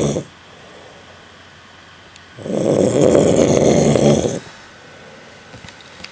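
Snoring in an even rhythm of about one snore every four seconds. The end of one snore falls right at the start, and a full snore of about two seconds begins a little past two seconds in, with much quieter gaps between.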